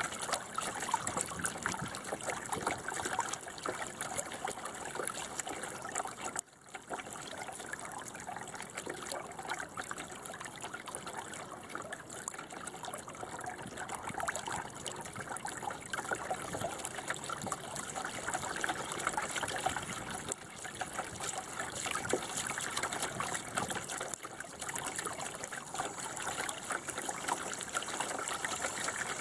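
Water trickling and splashing against the hull of a small sailing dinghy, a steady wash with a brief dip about six and a half seconds in.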